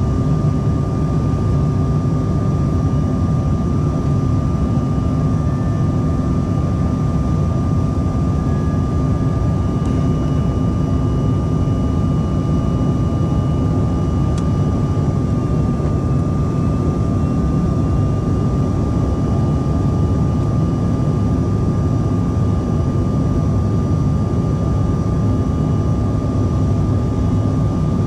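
Steady cabin noise inside a Bombardier CRJ-900 in flight: a deep rush and drone from its rear-mounted GE CF34 turbofans and the airflow, with a constant high whine over it.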